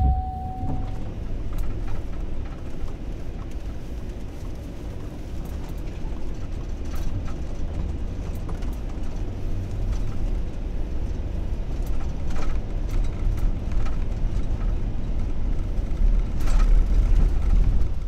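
A 4x4 van driving on a snow-covered road, heard from inside the cab: a steady low engine and road rumble with occasional light clicks. A short beep sounds right at the start.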